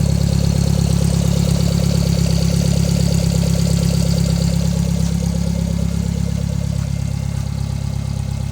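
Subaru Sambar's engine idling steadily through a custom exhaust: a Suzuki GSXR 750 motorcycle silencer with a catalytic converter mounted inside it. The sound eases off slightly about halfway through.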